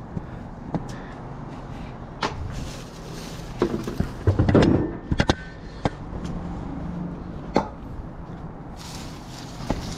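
Scattered knocks and clatter of discarded items being handled and moved, with a louder burst of rattling about four to five seconds in, over a steady low hum.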